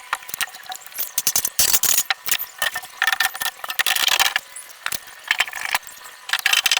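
Rapid, irregular mechanical clicking and rattling in clusters, like a ratchet or small mechanism being worked.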